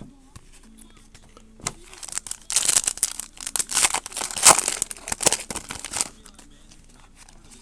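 Trading-card pack wrapper crinkling and tearing as it is opened: a dense flurry of sharp crackles lasting about three to four seconds, with scattered clicks before and after.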